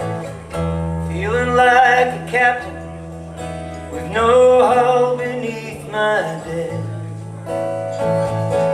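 Live band playing a slow rock ballad: strummed acoustic guitar over bass notes that change every couple of seconds, with a melody line sliding between notes above it.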